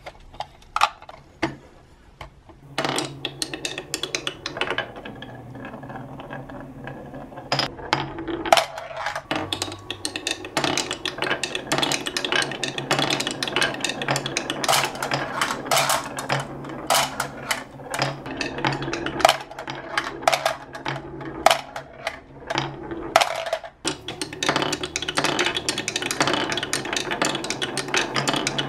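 Glass marbles rolling and clattering down a HABA beechwood marble run: after a few separate clicks, a steady wooden rolling rumble sets in about three seconds in, dense with sharp clicks as the marbles strike the zigzag blocks, the rails and each other, dipping briefly twice.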